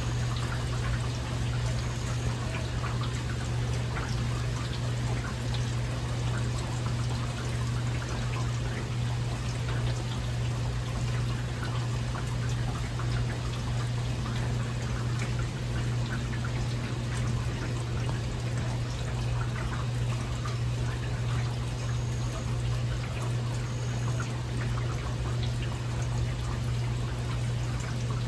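Heavy rain falling steadily, with many separate drop hits, over a steady low hum.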